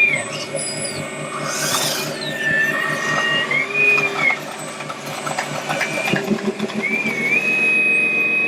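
Small electric motors and gearboxes of radio-controlled scale trucks whining. The pitch rises and falls with the throttle, over a low rapid chugging.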